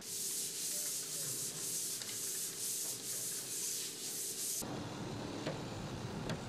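Drywall pole sander rasping up and down a wall in steady strokes, about two a second. About two-thirds of the way through it cuts off, and a steady low rumble of outdoor noise follows.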